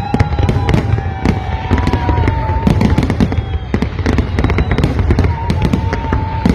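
Large fireworks display: rapid, dense crackling and popping over a continuous low rumble of bursts.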